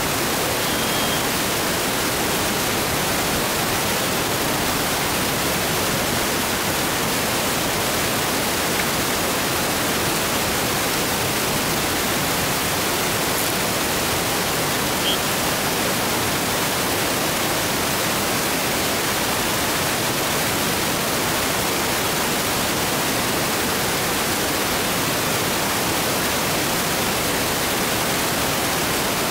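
Steady, even hiss like static, filling the whole range with no rise or fall and covering any sound from the field.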